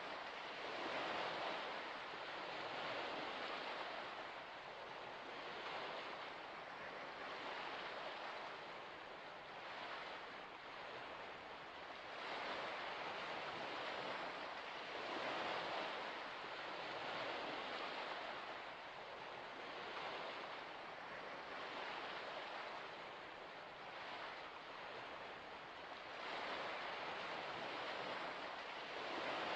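Gentle waves lapping: a soft wash of water that swells and fades every two to three seconds.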